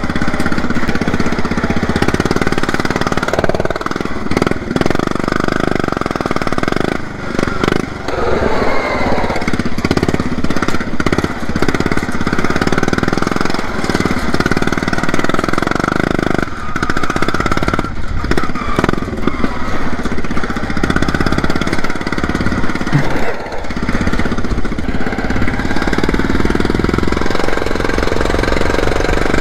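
Modified riding lawn mower's engine running hard at speed, a loud continuous engine note that dips briefly a few times.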